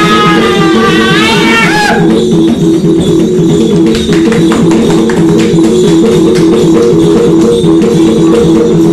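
Dance music: a steady, repeating plucked-string riff with jingling percussion. A high melody that glides in pitch sounds over it for about the first two seconds, then the riff and percussion carry on alone.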